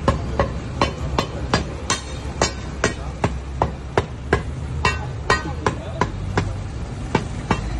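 Metal bars striking and prying at a street manhole cover in a steady beat of about two and a half ringing metal-on-metal clanks a second. The lid is rusted stuck, and the firefighters are working it loose.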